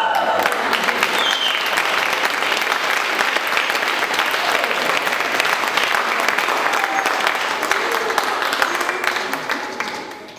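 Theatre audience applauding loudly, a dense patter of clapping that dies away near the end.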